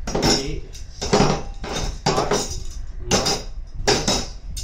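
Metal ground electrode stakes clinking and rattling against each other as they are handled and laid into a plastic carrying case, in clusters about once a second.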